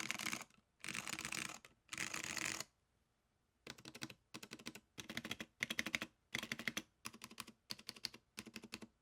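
Typing on a custom Bullfrog 60 mechanical keyboard with tactile SKCM Brown Alps switches, a POM plate and IBM 5140 keycaps: three runs of rapid keystrokes, a pause of about a second, then a string of short runs of distinct clicky-clacky keystrokes.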